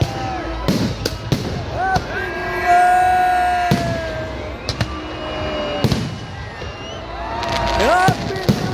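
Fireworks and firecrackers going off: sharp bangs and crackles at irregular intervals, bunched together near the end, over a crowd's shouting and long held high tones.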